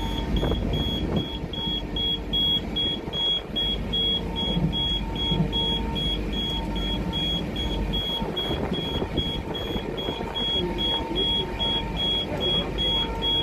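Cab of a railway inspection car at speed, about 125 km/h: a steady rumble of running on the rails, with a short high electronic beep repeating evenly about two to three times a second.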